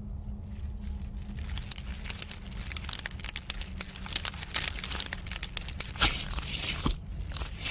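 Film monster sound effects: a dense, wet-sounding crackling and clicking that builds over a steady low drone, with a loud hiss about six seconds in and another starting near the end.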